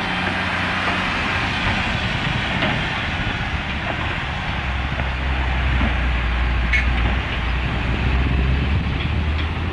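Steady low rumble of a heavy vehicle's engine running, its deep hum growing stronger about halfway through, over a constant hiss. A few faint ticks come near the end.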